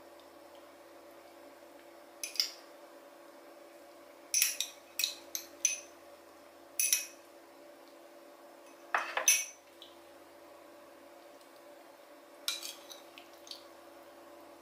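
Metal serving spoon and fork clinking against a ceramic plate as curry and a prawn are spooned onto it: a dozen or so sharp clinks in small clusters, the loudest a little after the middle. A steady low hum runs underneath.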